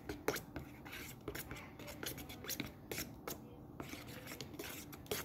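Pink glue-and-baking-soda slime base being stirred in a plastic bowl: quick, irregular scraping and tapping of the stirrer against the bowl, with a light sticky squelch.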